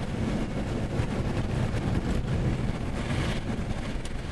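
Wind buffeting the microphone: a steady, uneven low rush with no engine tone, and a brief brighter hiss about three seconds in.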